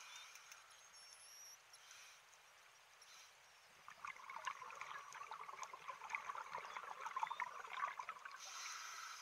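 Underwater scuba breathing: a scuba diver's exhaled bubbles gurgling and crackling for about four seconds, starting a little before the middle, after a few seconds of faint hiss. A short hiss follows near the end.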